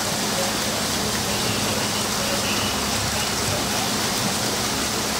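Floodwater rushing and splashing steadily, an even hiss that does not change, over a faint steady low hum.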